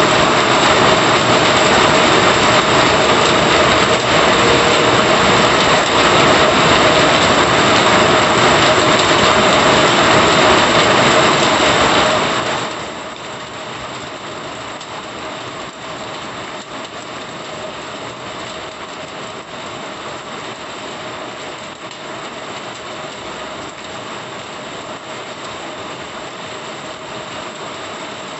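Heavy monsoon rain pouring steadily onto a wet paved road and the surroundings, a dense even hiss. About twelve seconds in, it drops suddenly to a quieter, steady rain sound.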